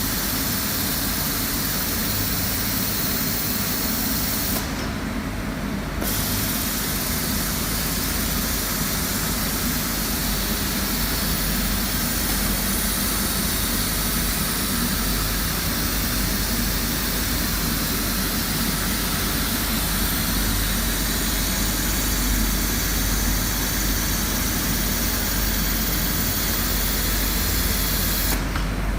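Quilt edge trimming and taping machine with its overlock sewing head running steadily: a continuous mechanical whir with a low hum and a bright hiss. The hiss cuts out briefly about five seconds in.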